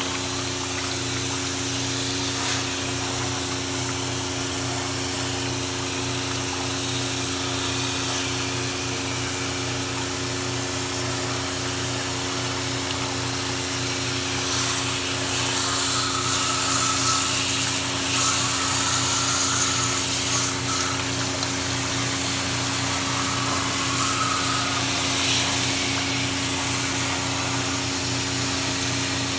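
Water-pressure cleaning pump running with a steady motor hum under the hiss of a water spray. The spray gets louder and harsher for several seconds about halfway through.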